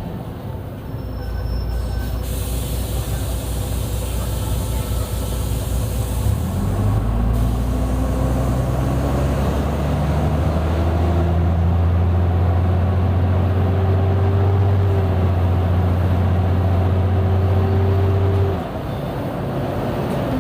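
Mercedes-Benz O-500U city bus engine and Voith automatic transmission under way: the engine note steps up about six seconds in, a slowly rising whine climbs over it, then it holds loud and steady before dropping off suddenly near the end.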